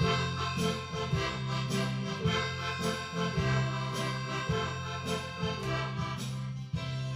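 Instrumental background music with a steady beat, sustained reedy chords over a moving bass line.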